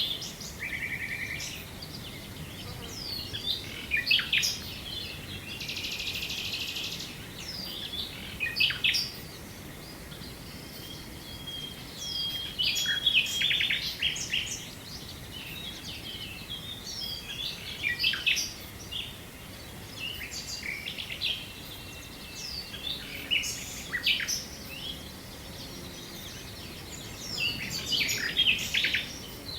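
Several small songbirds singing and calling together: quick chirps, whistled sweeps and fast buzzy trills, in irregular bursts, over a faint steady background hiss.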